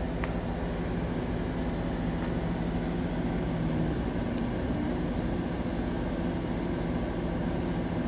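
50-watt CO2 laser engraver running while it engraves text into wood: a steady whirring hum of its fan and pump, with the motors driving the engraving head. Two faint clicks come about a quarter second in and about four and a half seconds in.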